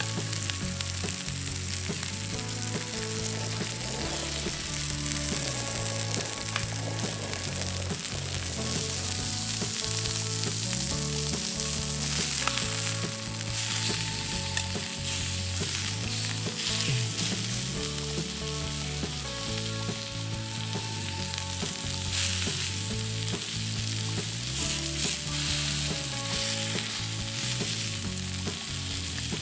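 Steak and onions sizzling steadily in an iron skillet, with a few scrapes and clinks of a fork on the pan as the steak is turned and onions are moved on top.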